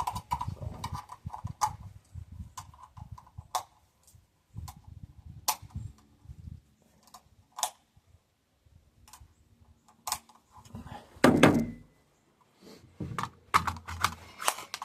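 Metallic clicks and clacks of a 3D-printed gun's action being handled and worked after it failed to cycle, with one louder clack about eleven seconds in.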